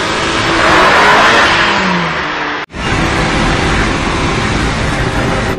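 Sports car engines running hard at speed, swelling to a peak as a car rushes past about a second in. There is a split-second break just under three seconds in, and then the engine noise carries on.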